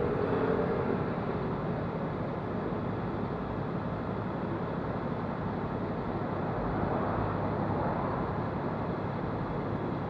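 Road sweeper truck running close by, a steady mechanical noise with a low hum.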